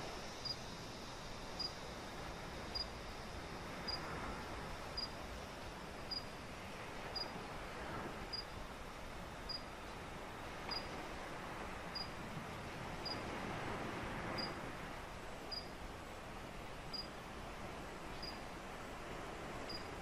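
Ocean surf washing steadily onto a sandy beach, swelling and easing slowly. Over it, a short high chirp repeats evenly about once a second.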